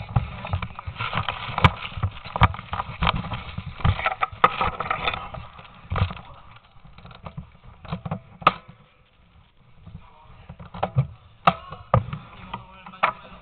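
A player moving about on a rubble-strewn floor: rustling of clothing and gear with many sharp, irregular clicks and knocks, busiest in the first few seconds and sparser later.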